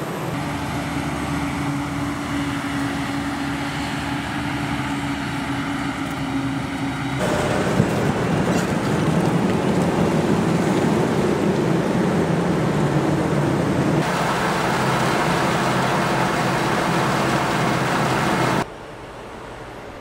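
Diesel engines of Claas tractors running steadily while hauling forage wagons and pushing chopped maize silage. There is a steady hum at first; the noise gets louder and rougher about seven seconds in, then drops much quieter near the end.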